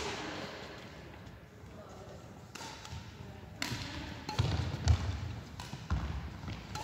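Badminton rally: sharp cracks of rackets striking the shuttlecock every second or so, with low thuds of players' feet on the wooden court floor, the loudest thud about five seconds in.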